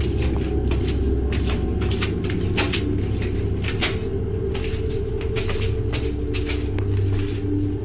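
Irregular scuffs, knocks and footsteps of people pushing through a narrow doorway in a rough concrete building, over a steady low rumble. A faint held tone comes in about six seconds in.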